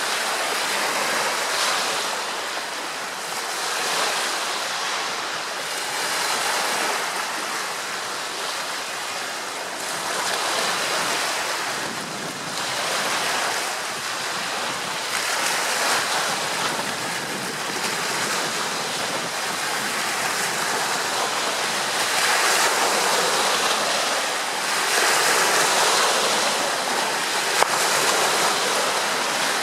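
Small choppy waves slapping and splashing near the camera, the rush swelling and easing every couple of seconds, with wind on the microphone. One sharper slap near the end.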